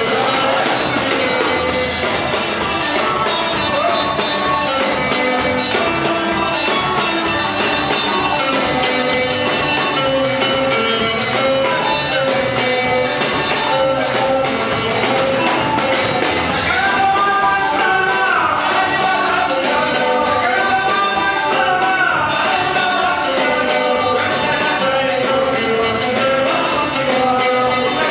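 Music with singing over a steady, evenly spaced percussion beat.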